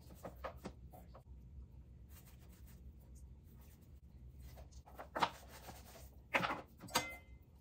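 Hands rubbing and patting dry spice rub into raw pork ribs, a soft rustling and slapping. Near the end come three louder thumps and scrapes as rib pieces are set back down in a metal roasting pan.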